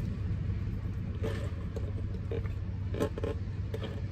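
Steady low hum inside a car's cabin, with a few short soft clicks and rustles, about three, as a drink is sipped through a straw from a paper cup.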